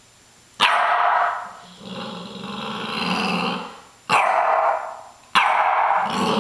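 A dog barking and growling in excitement at a door stop: three sudden loud sounds, each fading over about a second, about half a second, four seconds and five and a half seconds in, with a low growl between them.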